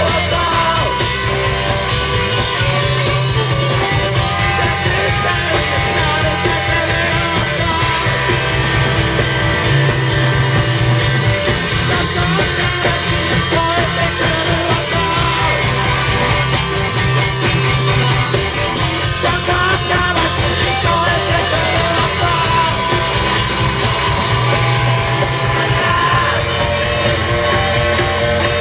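Live rock band playing: two electric guitars and a drum kit, with a male lead vocal sung and shouted over them.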